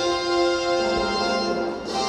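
Children's chorus singing with an instrumental accompaniment, holding long notes, with a lower note joining about a second in.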